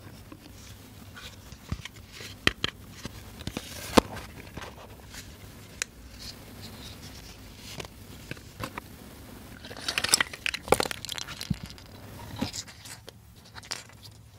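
Hard plastic toy fruit pieces and a clear plastic tub being handled: scattered clicks and clacks of plastic on plastic, one sharp click about four seconds in, and a burst of clattering knocks about ten seconds in as the pieces come out onto the table.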